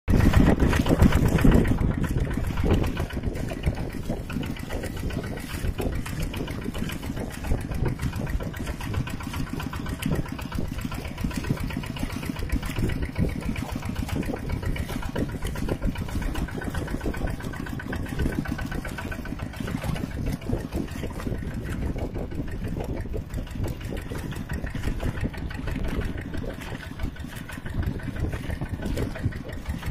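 Mini tractor's engine running steadily with a rapid, even firing beat, a little louder for the first couple of seconds.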